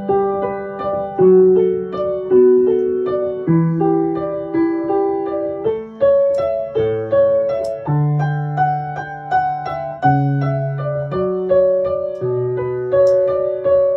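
Background music: a gentle solo piano or electric piano piece, a melody over a slow bass line with notes struck about twice a second.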